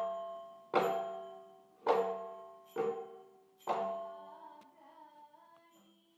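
Background music: a pitched instrument struck about once a second, four notes each ringing out and dying away, followed by soft wavering tones that fade out near the end.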